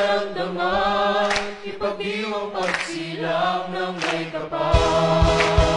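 A choir singing a Christmas song, voices moving between held notes over a sustained low note. Near the end a drum beat and bass come in.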